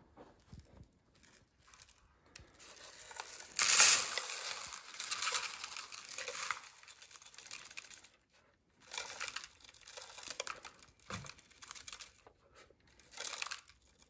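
Dry debris (rice and Fruit Loops cereal) pouring and rattling out of a Roomba J7+ robot vacuum's plastic dirt bin into a paper bowl, in several rustling bursts, loudest about four seconds in.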